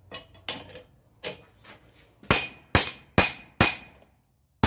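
Blacksmith's hammer, its loose head freshly re-wedged tight, striking steel on an anvil. About eight blows: lighter taps at first, then four heavy strikes about two a second, each with a short metallic ring.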